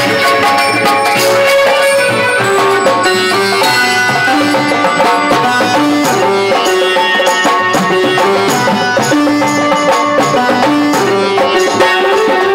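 Instrumental interlude of a live Hindi bhajan: an electronic keyboard plays the melody over harmonium, with percussion keeping a steady rhythm.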